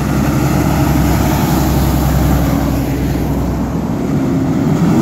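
Fire truck's Cummins diesel engine running loud and steady as the truck drives by close, a deep even drone throughout.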